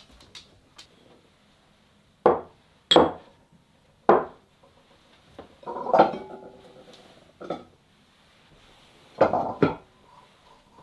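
Kitchen clatter: about seven sharp knocks of dishes, pans or utensils being handled and set down. The knock about six seconds in rings on briefly like a metal pan.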